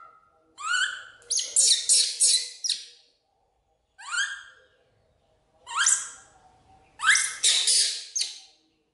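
Baby macaque screaming in shrill calls, each sweeping sharply upward in pitch. They come in bouts: a long string of calls about half a second in, single calls near the middle, and another string near the end.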